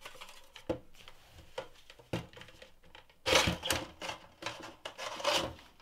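Sheet-metal cover of an HP 33120A function generator being slid off its chassis: a few light clicks and knocks, then about two seconds of loud metal scraping and sliding as the chassis comes out of the cover.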